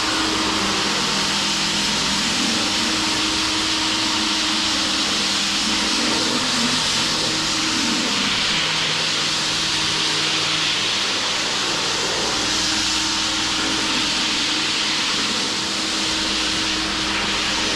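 A machine running steadily: a strong, even hiss with a low hum of a few steady tones that fade out and back in.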